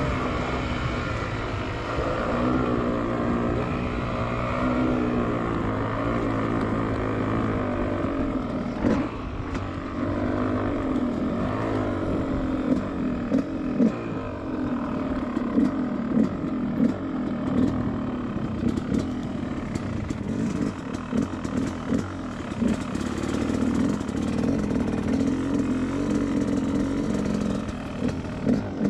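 Two-stroke dirt bike engine running and revving while ridden on a trail, its pitch rising and falling. From about halfway on, frequent knocks and rattles from the bike over rough ground.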